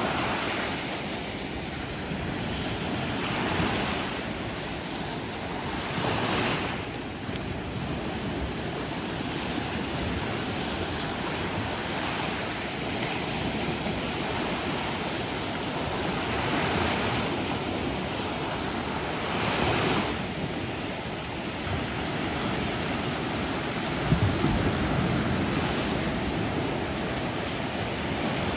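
Sea waves washing onto the shore: a steady surf wash with a wave surging in every few seconds.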